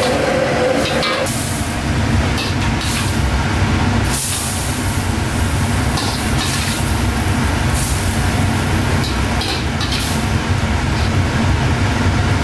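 Gas wok burner running with a steady low rumble under a wok of boiling jjamppong broth, with short hissing splashes now and then as the soup is poured from the wok into a bowl.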